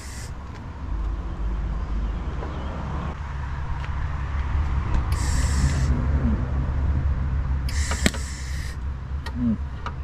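Welder arc laying two short tack welds on thin sheet-metal firewall patches, each a crackling hiss lasting under a second, about five and eight seconds in, over a low steady rumble.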